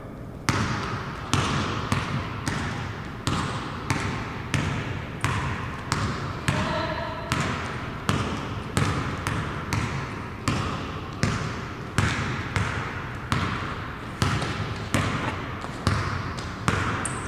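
A basketball being dribbled on a hard floor, bouncing steadily about once a second, each bounce ringing briefly in a large room.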